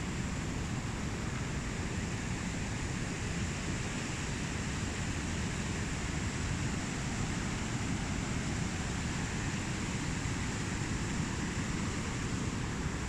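Steady rush of a fast mountain river running over a rocky bed.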